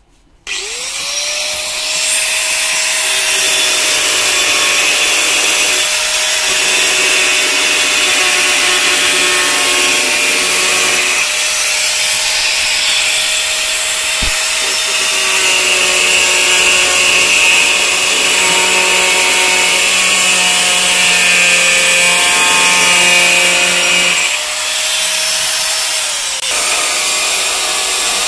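Handheld electric angle grinder spinning up with a rising whine about half a second in, then cutting through the sheet-steel floor of a battery tray with a steady, loud grinding. Near the end it briefly goes lighter, then bites in again.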